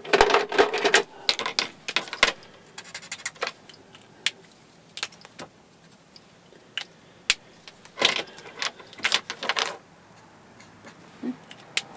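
Plastic Copic marker caps clicking off and on, and markers clattering on the table as they are handled, mixed with short scratchy strokes of a marker tip on card near the start and again around eight to nine seconds in.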